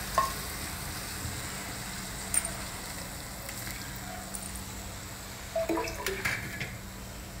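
Water sprinkled from a copper tumbler onto cluster beans frying in a steel pan, over a faint steady sizzle, with a few light metal clinks.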